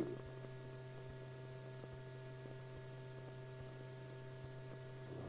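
Faint steady electrical hum with a few light clicks: the background hum and crackle of an old film soundtrack.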